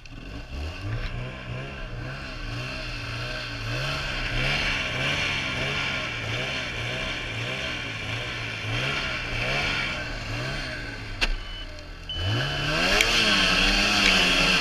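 Arctic Cat Z570 snowmobile's two-stroke twin revved in quick repeated blips, about twice a second, its note rising and falling. About eleven seconds in there is a sharp click, then a longer, harder rev.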